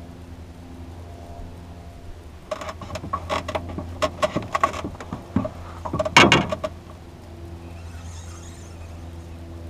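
Small outboard motor idling steadily with a low, even hum. From about two and a half seconds in to about seven, a rapid run of clicks and knocks from fishing tackle being handled rises over it, the loudest knock just past six seconds.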